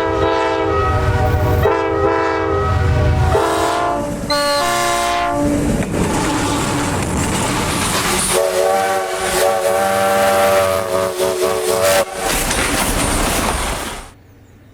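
Diesel freight locomotive air horn sounding several long chord blasts over a deep engine rumble and the rolling noise of the train. The sound cuts off abruptly near the end.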